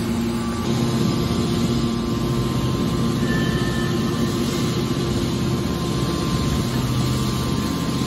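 Hydraulic power unit of a horizontal scrap steel baler running with a steady hum while it drives the baler's lid down over the charging box of scrap.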